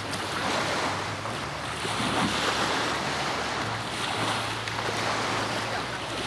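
Wind gusting across the microphone over small waves lapping at the shoreline, with a faint steady low hum underneath.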